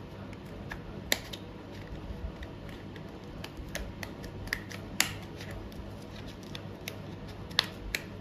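Scattered light clicks and taps of small objects being handled, with three sharper clicks spread through it, over a faint steady hum.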